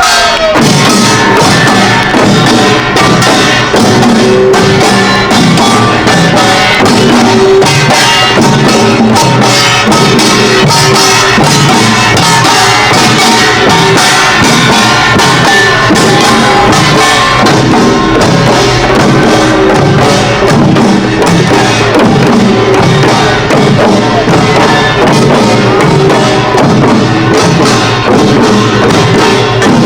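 Korean pungmul percussion ensemble in the Imsil Pilbong nongak style playing loudly and without a break: clanging kkwaenggwari small gongs over janggu hourglass drums and buk barrel drums, in a dense driving rhythm.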